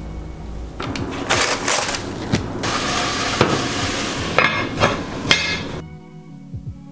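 Cast-iron Dutch oven and its lid knocking and clanking as the lid is handled and lifted off the pot, several sharp metallic knocks over a few seconds, with soft background music before and after.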